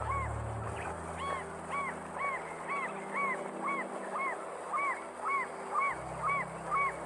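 African jacana calling: a steady series of short notes, each rising then falling in pitch, about two a second.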